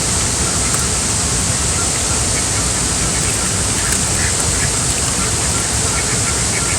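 Ducks quacking several times, faint against a loud, steady rush of water.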